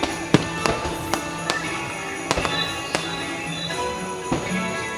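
Fireworks show music playing while fireworks burst in a series of about eight sharp bangs. The loudest bang comes about a third of a second in.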